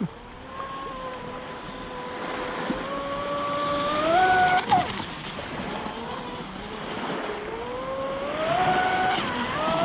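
Electric RC speedboat's brushless motor whining at speed over the wash of water and wind. Its pitch climbs as the throttle opens about three seconds in, dips briefly near five seconds, and climbs again from about seven seconds.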